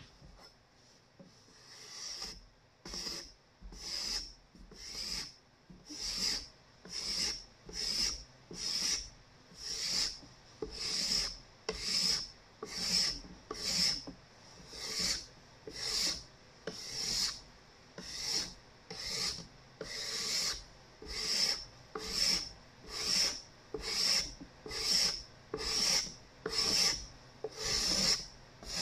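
A steel card scraper is pushed along a cedar board in repeated raspy strokes, about one a second. The strokes begin about two seconds in.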